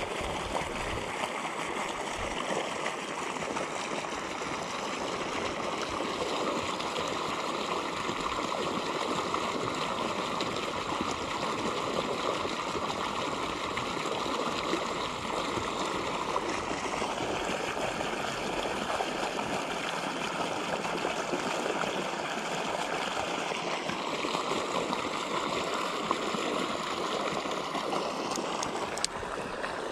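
Water gushing steadily from a pipe outlet and splashing onto a pond's surface.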